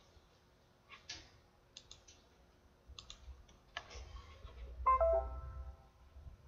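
A few sharp computer mouse clicks, then about five seconds in the Windows 10 notification chime: a short chord of several tones that fades within a second, the loudest sound here. It announces a drive-error notification.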